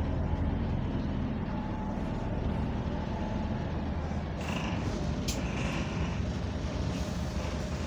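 Bus engine and air compressor running steadily, heard from inside the lower deck of a double-decker bus, with a short sharp sound a little past the middle.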